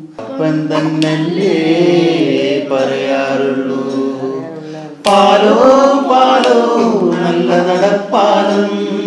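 Unaccompanied singing of a Malayalam song, in long held, wavering notes; it gets louder about five seconds in.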